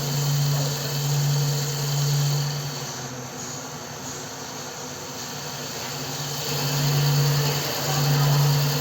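CNC wood lathe running: a steady motor hum with a hissing cutting noise over it, which drops away for a few seconds in the middle and then comes back.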